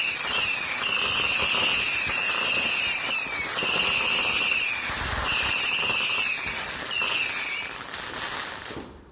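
Garden firework cake firing a rapid series of shrill whistling shots, one after another with short breaks, loud throughout, until it stops about eight seconds in.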